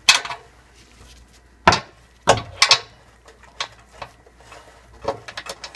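Torque wrench and socket ratcheting a nut onto an oxygen sensor flange stud on the exhaust, tightening it: a few sharp metal knocks in the first three seconds, then lighter, quicker ticks near the end.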